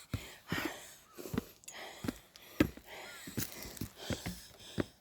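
A hiker's heavy breathing after a steep climb, with soft puffs of breath and scattered sharp taps.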